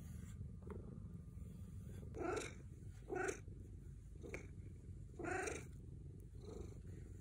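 Ragdoll cat purring steadily while being brushed, with four or five brief meows over the purr.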